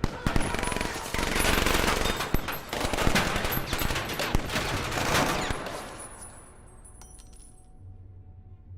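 Rapid gunfire: a dense volley of shots crackling over one another for about six seconds, then dying away.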